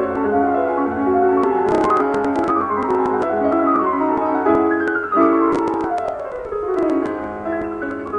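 Background instrumental music of quick notes, with several fast descending runs, the longest sweeping down over about two seconds near the middle.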